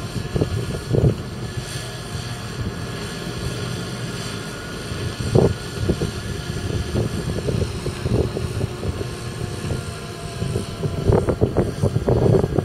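Fendt 927 Vario tractor's 7.8-litre six-cylinder turbocharged diesel running steadily as it tows a loaded water tanker, with wind buffeting the microphone in uneven gusts.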